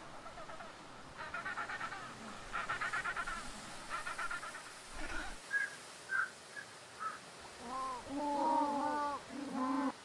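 African penguins braying in a colony. A run of rapid pulsed calls comes first, then a few short high calls around the middle, then longer, lower calls near the end.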